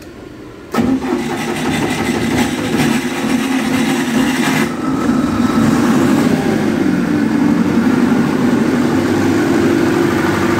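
Cummins diesel engine of a 50 kVA generator set being started from its control module. It cranks and catches suddenly about a second in, then runs steadily. This is the first start of a long-unused genset, with its fuel primed by hand.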